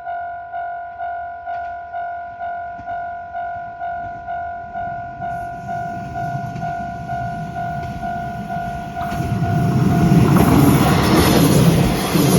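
Japanese level-crossing warning bell ringing at about two dings a second while a local train approaches, its rumble and rail noise growing louder. The train passes the crossing in the last few seconds, the loudest part, and the bell's ding fades out under it.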